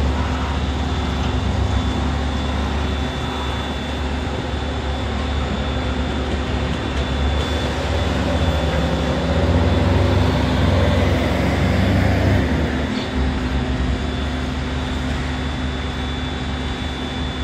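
Bulk cement tanker discharging its load: a steady mechanical drone with a deep hum and a thin high whine.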